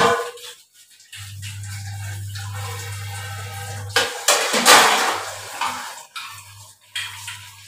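Dishes being washed by hand in a steel kitchen sink: a sharp clank of a utensil at the start, then a loud splashing rush with clatter about four seconds in as a dish is rinsed and set on the rack. A low steady hum comes and goes underneath.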